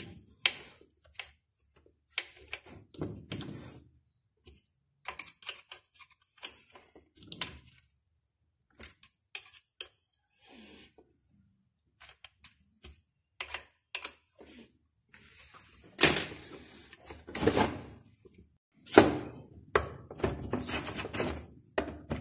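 Irregular clicks, taps and knocks of hand tools and small engine parts being handled, with some scraping, growing busier and louder in the last several seconds.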